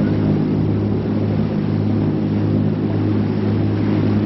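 Catamaran's engine running at a steady pitch: a constant low drone.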